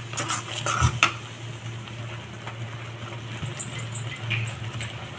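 A steel spoon scraping and clinking against a kadai a few times in about the first second as thick masala paste frying in butter is stirred, then quieter, with a low steady hum underneath and a few faint ticks.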